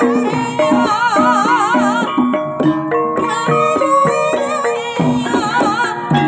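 Banyumasan Javanese gamelan playing: gong-chime and metallophone notes ringing in a steady pulse with kendang drum strokes. A sinden, a female singer, joins in with long wavering notes about a second in and again near the end.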